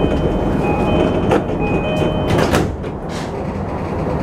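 Train door-closing chime, two tones alternating, followed by the doors knocking shut about two and a half seconds in, then a brief hiss.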